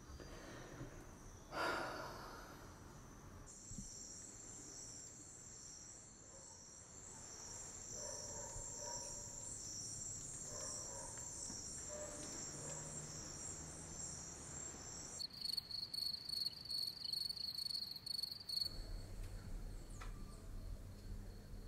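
Crickets chirping at night in a high, evenly pulsing chorus. About fifteen seconds in, a different, sharper insect trill takes over for a few seconds, followed by a low steady hum. There is a brief louder noise about two seconds in.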